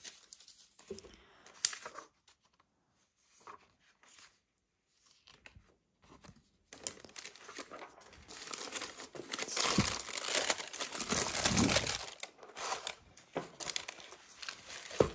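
Tissue paper and soft dust bags crinkling and rustling as shoes are unwrapped in a cardboard shoebox. A few small handling sounds come first, then steady rustling starts about seven seconds in and runs on.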